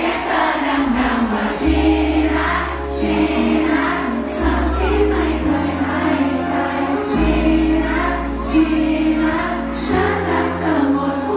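Two men singing a Thai pop song live into handheld microphones over a backing track with a steady bass line.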